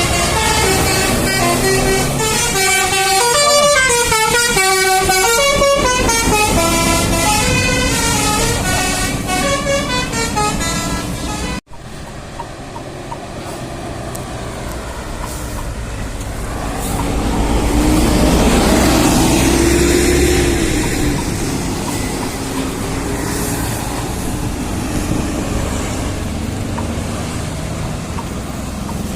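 Bus 'telolet' horn, a multi-tone air horn playing a quick stepping melody of several notes at once. After a sudden cut, a bus passes close, its engine rumble swelling to a peak about two-thirds of the way through and fading.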